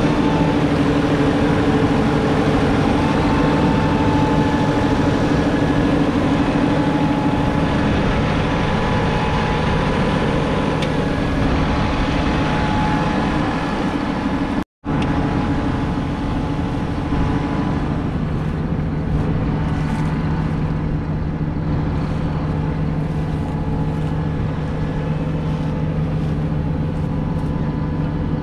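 JCB Fastrac 4220's 6.6-litre six-cylinder diesel engine running steadily, with a whine above the engine note. It breaks off for a moment about halfway, and afterwards the engine note is lower.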